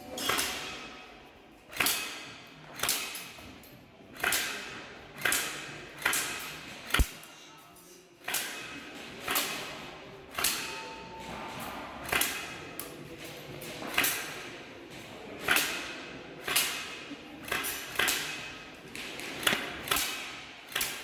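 Airsoft gun fired over and over, about one shot a second, each shot followed by a short ringing ping, with one sharper, heavier knock about seven seconds in.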